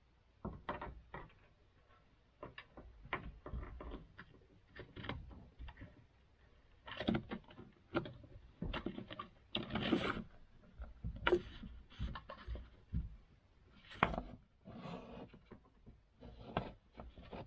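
Scattered knocks, clicks and scraping from a Starlink cable being fished through a hole drilled in wooden wall framing, with the cable rubbing and tapping against the wood.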